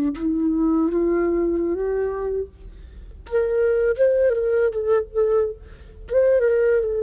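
Solo flute playing a slow melody: long held notes stepping gradually upward, a short pause for breath, then a phrase of shorter notes a little higher in pitch.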